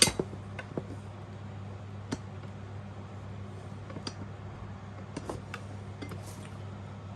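Occasional light clicks and taps from parts and packaging being handled, a sharp one at the start and a few faint ones after, over a steady low electrical hum.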